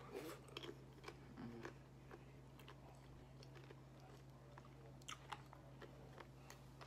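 Quiet chewing of nacho tortilla chips, with scattered soft crunches and mouth clicks, bunched near the start and again about five seconds in, over a steady low hum.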